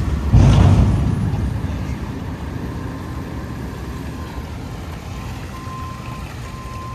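A Mack Granite roll-off truck's diesel engine running. Just after the start comes a loud, deep burst of noise that fades over about a second. Near the end the truck's new backup alarm starts beeping, a single-pitched tone in repeated beeps.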